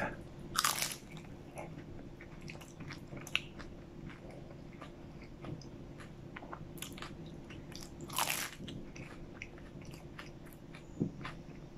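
A McDonald's strawberry custard pie's pastry crust being bitten and chewed: louder bites about half a second in and again about eight seconds in, with quieter crackly chewing between.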